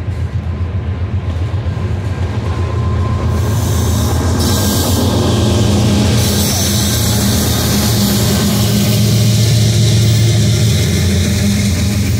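Freight train passing close by: the low drone of two mid-train diesel locomotives grows as they go past, over the rolling noise of steel wheels on rail, which gets louder and hissier from about four seconds in.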